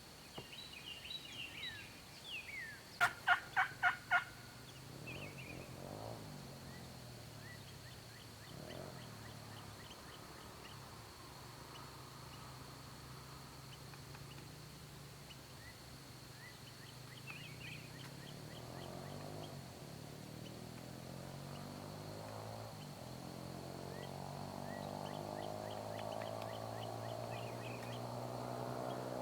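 A turkey calling: a loud, quick series of five sharp notes about three seconds in, among faint songbird chirps and a steady high insect-like whine. A low droning hum builds slowly through the second half.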